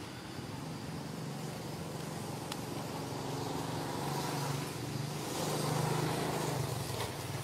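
Low, steady hum of a motor vehicle engine in the background, swelling louder about five seconds in, over outdoor background noise.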